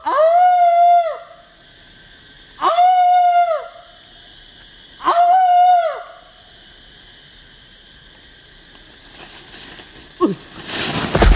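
A man's long howling calls through cupped hands: three drawn-out cries, each sliding up, held on one pitch and dropping away, about two and a half seconds apart. Near the end comes a short falling yelp, then a loud crash as he falls.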